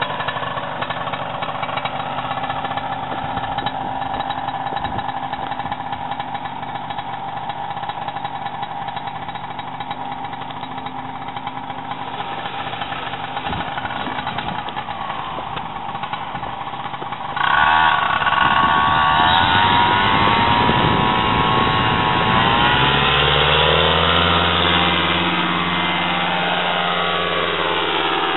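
Paramotor engine running steadily at low throttle, then opened up suddenly about two-thirds of the way in to a louder, higher full-power note for the take-off run. Near the end its pitch slides down as the climbing paramotor moves away.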